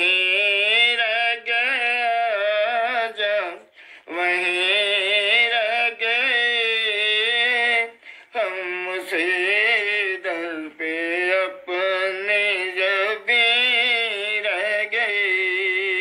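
Wordless devotional singing voice holding a slow, wavering melody in long phrases with short breaks about every four seconds, unaccompanied by instruments or drums: the vocal-only backing of an Urdu naat.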